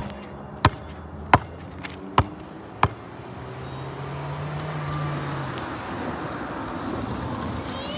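A basketball bounced on an asphalt court five times, about 0.7 s apart, the first bounce the loudest. After that a steady outdoor rushing noise gradually grows louder.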